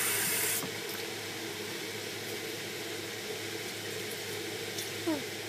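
Water poured from a glass into a stainless steel pot of simmering vegetables on a gas stove, over a steady hiss from the pot; a short, louder hiss at the very start.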